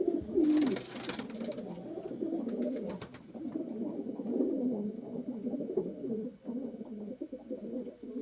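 Several racing pigeons cooing at once, their low, wavering coos overlapping continuously. A brief rustle sounds about half a second in, the loudest moment.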